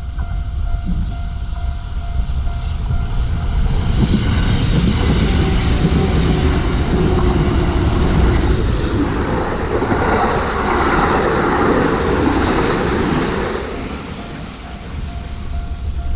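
Kintetsu electric train passing over a level crossing: a rumble with clattering wheels builds about four seconds in, is loudest near the end of its pass, and dies away at about fourteen seconds. The crossing's electronic warning bell rings steadily at the start and again near the end, covered by the train in between.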